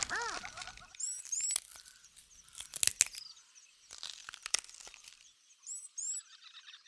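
Wild birds chirping in the bush, with several sharp dry cracks and a crackling rustle in between.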